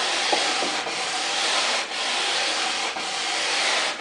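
Hand sanding block with sandpaper rubbed in long back-and-forth strokes along the edge of a wooden table leaf: a light sanding of the edge where the pin holes were just drilled.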